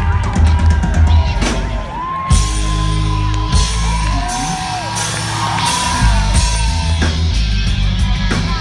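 Live reggae-rock band playing loud, with heavy bass and drums, and a voice holding long, wavering yelled notes over the music.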